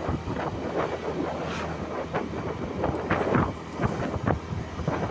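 Wind buffeting the microphone in irregular gusts over a steady rushing background.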